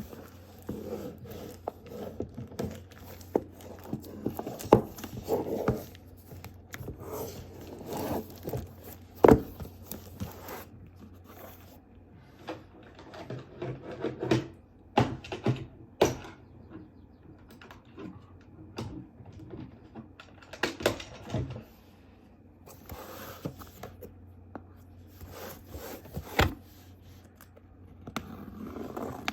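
Cardboard box and plastic packaging being handled and opened by hand: scraping, rustling and tearing with scattered knocks and clicks as parts are lifted and set down, over a faint steady low hum.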